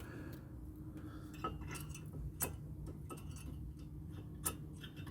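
A few light metallic clicks and clinks of a brake pad and its wear-indicator tab being handled against the caliper bracket. The sharpest come about halfway through and again near the end.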